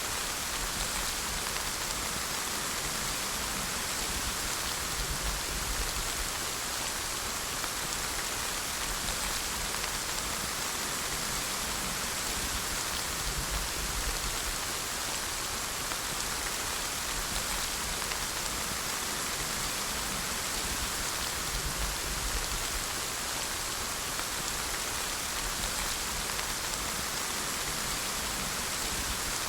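Steady rain falling: an even hiss of many drops, with a faint low rumble that comes and goes underneath.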